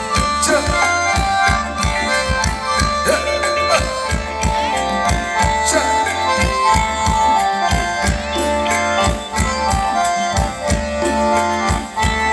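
Thai luk thung band music played without vocals: a khaen (bamboo mouth organ) plays reedy held melody notes over a steady drum beat and bass.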